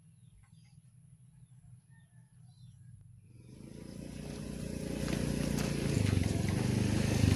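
Motorcycle engine idling with a fast, even beat. It fades in about halfway through and grows steadily louder, after a quiet start with only a faint low hum.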